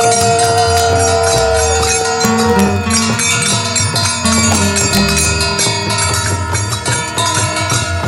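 Music with jingling bells and percussion over a regular low beat, with a long held note for the first couple of seconds.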